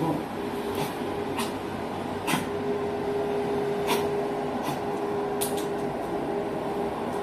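Steady machine-like hum with a held tone, and about six sharp clicks at irregular intervals.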